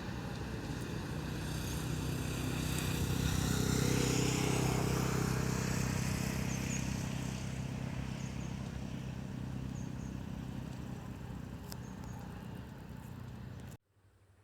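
Diesel locomotive engine humming as a train passes, swelling to its loudest about four seconds in and then slowly fading, before the sound cuts off suddenly near the end.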